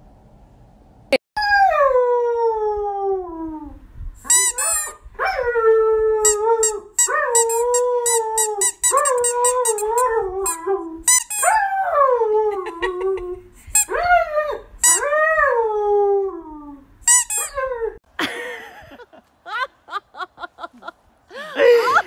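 Husky howling: a string of long howls, the first sliding steeply down in pitch, the later ones wavering up and down. Near the end the howls give way to short rustling and clicking sounds.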